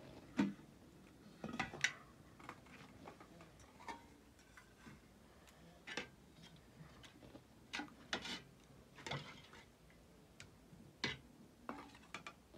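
Light clicks and knocks at irregular intervals, about a dozen, as of objects being handled and set down.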